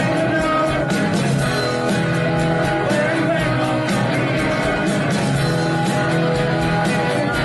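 A rock band playing live, with guitar and a steady beat.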